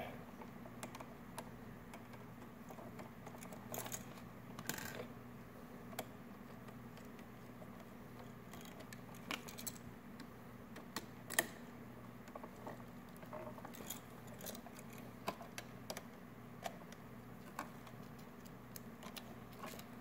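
Faint, irregular small clicks and light metallic rattles of a 3-way light switch and its wires being handled as the wires are fitted to the switch's screw terminals by hand, over a low steady hum.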